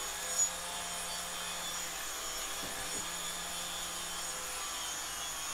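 Steady mechanical drone with a low hum and high whines held at fixed pitches, the kind of noise a running motor or power tool makes. A brief click sounds about half a second in.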